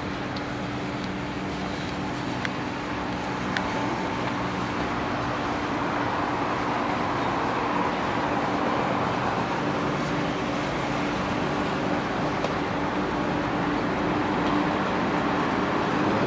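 A large house fire burning: a steady rushing roar with a low hum through it, growing slightly louder, and a few sharp pops in the first few seconds.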